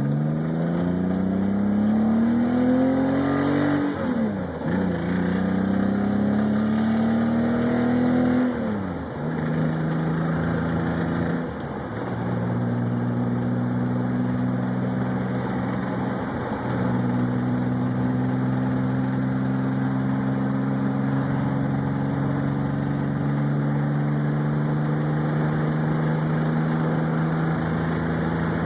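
BMW E30 327i's straight-six engine accelerating hard through two gear changes, its pitch climbing and falling back at each shift, then pulling steadily with the pitch creeping slowly up. The engine is one its owner reports running lean under load, at 18–19 AFR, with an intermittent knocking or rattling.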